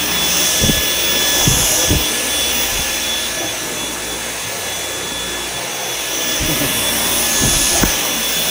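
Dyson V10 cordless stick vacuum running steadily, a constant rush of suction with a thin high motor whine over it. A few short low knocks come in the first two seconds and again near the end.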